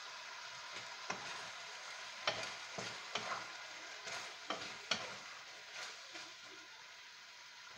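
Chicken and bell peppers sizzling in a nonstick wok over a gas flame while being stir-fried, with a run of sharp knocks and scrapes of the utensil against the pan between about one and five seconds in.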